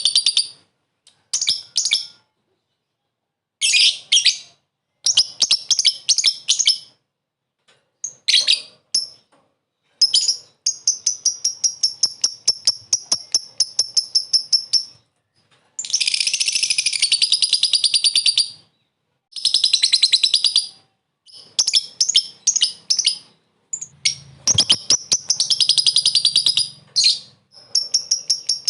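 Lovebird 'ngekek': rapid chattering trills of sharp, high notes, in bursts from about a second to five seconds long with short silent breaks between them.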